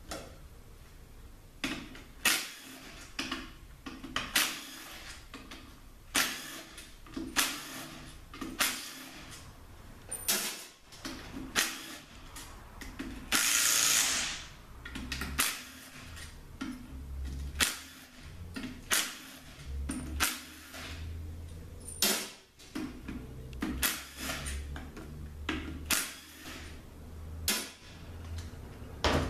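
Tools at work taking the top cover off a Honda 5-speed automatic transmission: a run of sharp metallic clicks and knocks, roughly one a second, with one hissing burst of about a second about halfway through.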